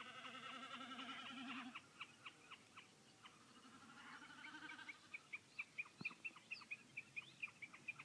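Common snipe giving a faint run of short, sharp repeated calls. The calls come about three a second at first and quicken to about five a second in the second half. A wavering trill sounds during the first couple of seconds, and there is a single sharp click about six seconds in.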